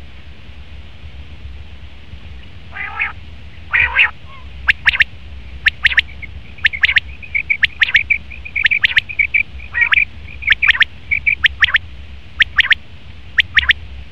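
Male common quail calling: two rasping notes about three and four seconds in, then a long, quick run of short, sharp notes, many in pairs, over a steady low hum.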